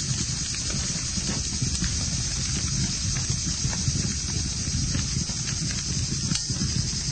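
Campfire burning: a steady low rush of flames with scattered sharp crackles and pops from the burning wood.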